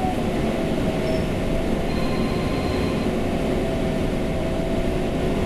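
City bus driving slowly, heard from inside the cabin: a steady rumble of the ride with a faint whine held at one pitch.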